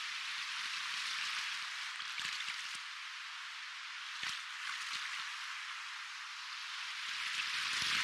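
Soft ocean waves: a steady hissing wash of surf that swells louder near the end, with a few faint clicks.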